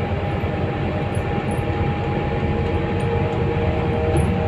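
Scania K320UB diesel city bus heard from inside the cabin while under way: a steady engine and road rumble with a steady whine over it and occasional faint high ticks.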